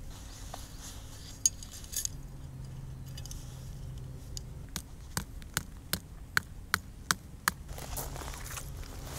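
Camping gear being handled and set out, giving a run of light clinks and knocks, about a dozen, mostly in the second half, some with a short metallic ring. A faint low hum runs for a couple of seconds before them.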